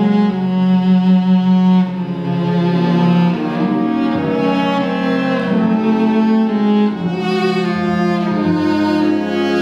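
Solo cello playing a melody of long bowed notes, accompanied by an orchestra's violins and strings. A long low note for about the first two seconds, then the line moves on through a series of held notes.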